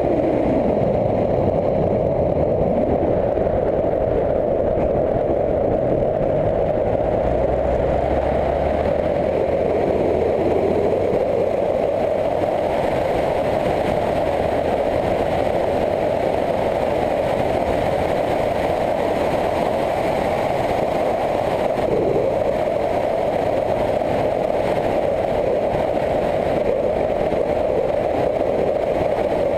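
Motorcycle being ridden along a winding road: a steady engine drone mixed with wind rush. The engine note shifts during the first ten seconds or so, then holds steady.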